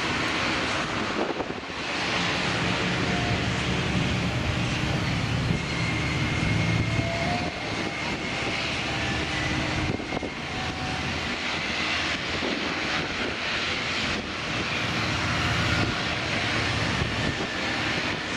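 A CASA C-295's twin Pratt & Whitney PW127G turboprop engines running steadily at taxi power as the aircraft taxis, with a faint high whine over the broad propeller and engine noise.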